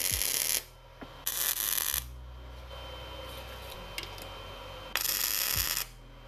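MIG welder laying short tack welds on steel engine-mount brackets: three bursts of arc crackle, each about half a second long. The first is already under way and stops just after the start, the second comes about a second in, and the third about five seconds in, with a low steady hum in the gaps between them.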